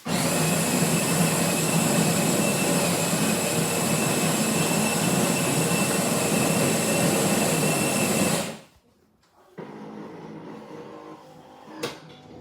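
Miele CVA 4060 built-in automatic coffee machine grinding beans: a loud, steady grinder whir that starts abruptly and cuts off after about eight and a half seconds. After a short pause a quieter machine hum follows, with a sharp click near the end.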